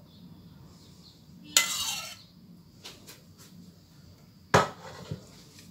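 A kitchen utensil knocking against cookware while cream filling is spooned onto kunafa. There are two sharp clinks about three seconds apart, the first trailing off in a short scrape, with a few light clicks between them.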